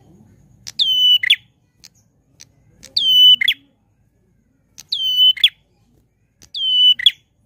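A caged prenjak klawu (ashy tailorbird) sings loud, clear whistles: four phrases about two seconds apart. Each drops from a high note to a held pure note and ends in a quick falling flick.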